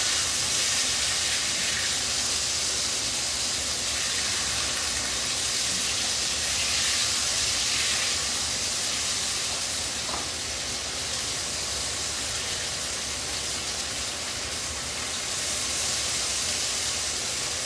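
Burgers and fries frying on the stove: a steady hot-oil sizzle.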